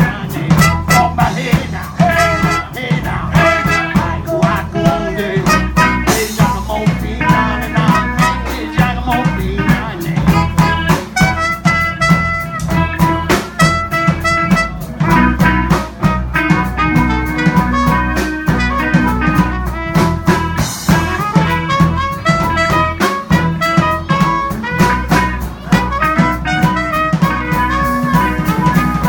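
A small live band playing a blues-style number: amplified harmonica cupped to a microphone, with saxophone and trumpet, keyboard, upright bass and a steady drum beat.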